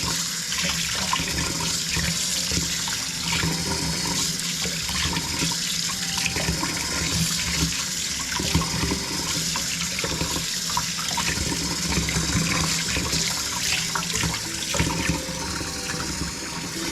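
Kitchen faucet running steadily into a sink while food is rinsed under it, with small knocks and clatters from handling in the sink.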